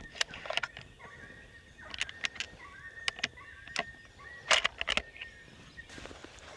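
Outdoor field ambience with birds singing faintly, broken by irregular sharp clicks and rustles of movement. The loudest cluster of clicks comes about four and a half seconds in.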